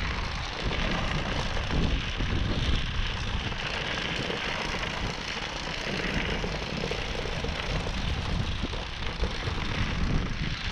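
Nanrobot Lightning electric scooter riding along a gravel path: steady wind rush on the microphone with tyres crunching over the gravel.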